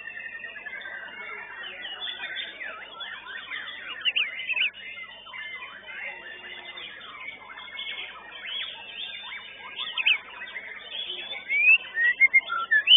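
Many white-rumped shamas singing at once: a dense, overlapping tangle of whistles and quick chirps, with a few louder sharp notes near the end.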